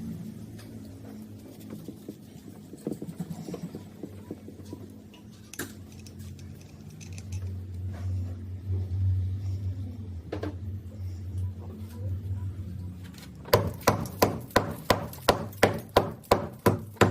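A few faint knocks and clatter with a low hum, then near the end a hammer striking hard and evenly, about three blows a second.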